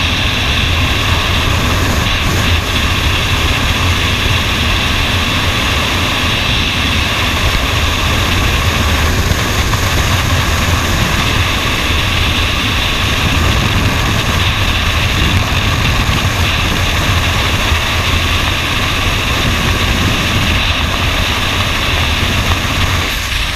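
Steady, loud rush of freefall wind blasting over a helmet-mounted camera's microphone.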